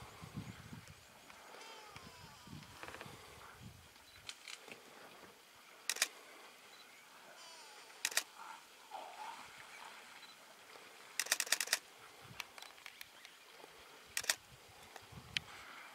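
Camera shutter clicks: single clicks a few seconds apart and, about eleven seconds in, a rapid burst of about six in quick succession.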